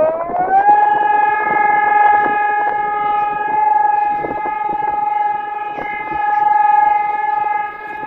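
Civil defence siren sounding in a monthly test: its tone finishes rising within the first second, then holds one steady pitch with slow swells in loudness.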